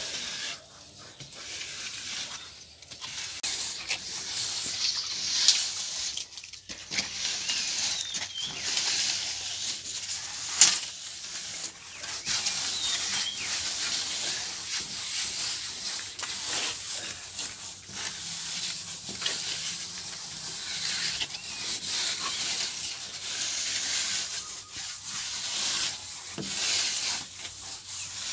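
A plastering tool scraping and rubbing over fresh cement render on a wall in continuous, swelling strokes, with two sharp knocks about five and ten seconds in.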